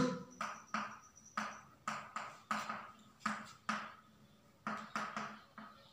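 Chalk writing on a blackboard: a dozen or so short strokes and taps in an uneven rhythm, with a brief pause about four seconds in.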